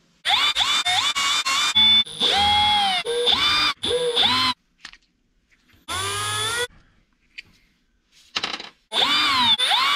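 Cordless electric screwdriver backing small screws out of a plastic RC portal housing in about six short runs. Each run is a motor whine that rises in pitch as it spins up, then holds steady.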